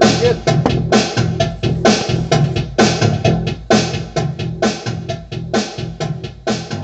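Background rock music with a driving drum kit, bass drum and snare.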